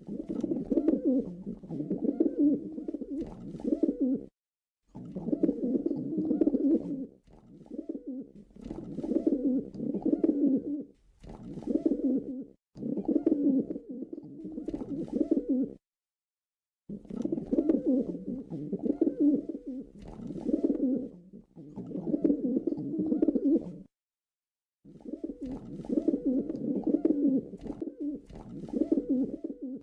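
Pigeon cooing over and over in low phrases of a second or two, with a few short gaps of complete silence.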